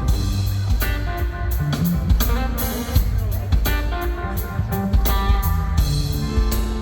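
Live blues-rock from a guitar-and-drums duo: electric guitar playing over a drum kit, with a steady beat of drum and cymbal hits.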